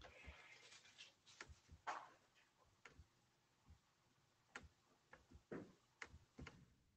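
Near silence with a few faint, irregular clicks and taps.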